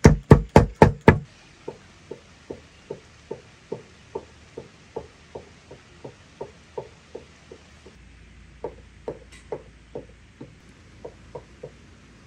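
A heavy curved cleaver chopping raw meat on a wooden board, about three to four strikes a second, stopping about a second in. Then soft rain with light drops plopping into water, a few a second.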